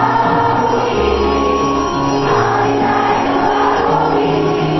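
Hymn music: singing with instrumental accompaniment, long held notes over a bass line that changes every second or so.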